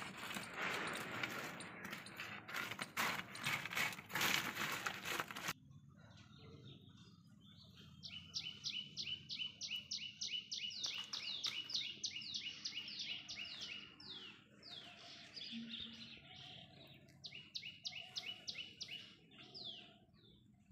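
A bird singing long runs of quick, high, downward-sliding chirps, about five a second, in two bursts. Before it, a loud hissing, crackling noise cuts off abruptly about five seconds in.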